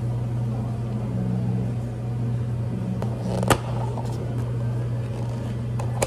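Steady low machine hum of café equipment, with a single sharp clink about halfway through as cups and pitchers are handled on the counter.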